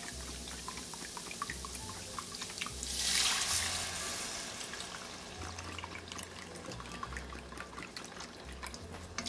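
Chicken broth trickling from a carton into a measuring cup. About three seconds in, a cupful is tipped into the hot pot of buttery vegetables with a louder rush that fades over a second or so, then the thin trickle into the cup resumes.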